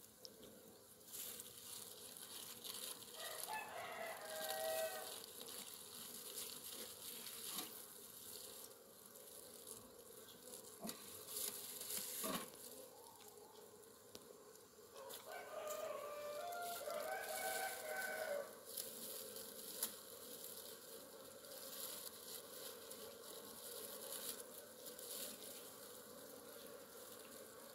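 A rooster crows twice, about three seconds in and again about fifteen seconds in. A steady hum of honeybees from the open hive runs underneath, with a couple of light knocks between the crows.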